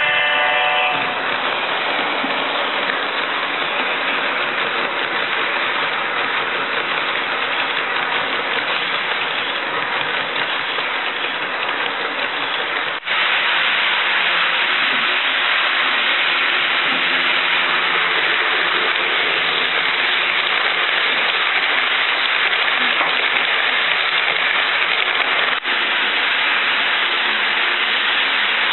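HO scale model trains rolling along sectional track, a steady hissing rolling noise from wheels and motors. The sound breaks off and steps up abruptly about 13 seconds in, with another brief dip near the end.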